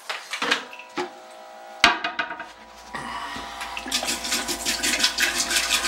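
Antifreeze poured from a jug into a toilet bowl, splashing into the water, to fill the toilet's trap against freezing. The pouring starts about three seconds in and grows louder; before it come a few knocks and one sharp knock about two seconds in.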